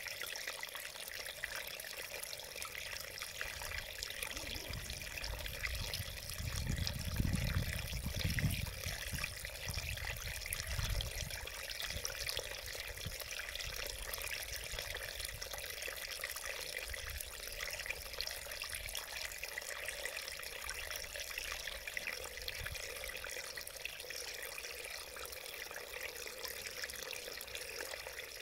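Small mountain stream babbling and trickling over rocks, a steady rush of water. A low rumble rises under it for a few seconds about a quarter of the way in.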